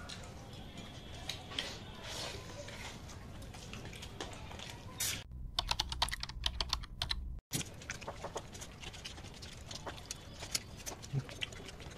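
Quiet scattered clicks and smacks of eating by hand, fingers working rice on a steel plate. About five seconds in, a two-second run of rapid computer-keyboard typing clicks cuts in and stops abruptly, after which the quiet eating clicks return.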